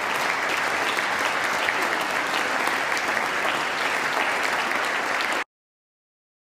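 A large audience of lawmakers applauding: a steady patter of many clapping hands. It cuts off abruptly about five and a half seconds in.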